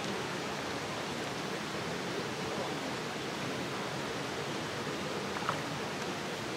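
Steady rushing background noise, with one faint brief tick about five and a half seconds in.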